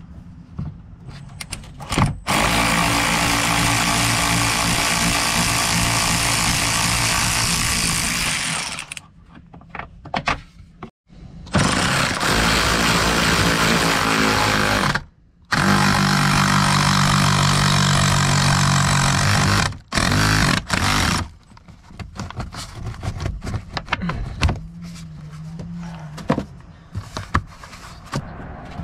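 International 4900 truck's turbocharged diesel engine running at a steady speed with a loud rushing noise over its hum, heard in several stretches that stop abruptly, the longest about six seconds, then quieter and uneven near the end.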